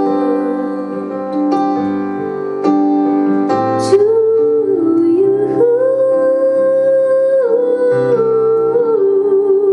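A woman singing a slow ballad to piano accompaniment. Piano chords sound in the first few seconds, and from about a third of the way in the voice holds long notes with vibrato.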